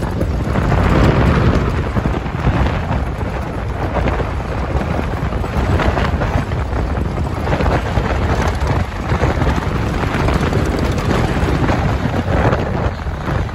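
Wind buffeting the microphone of a moving open safari vehicle: a loud, steady rumble, with the vehicle's running on the gravel road underneath.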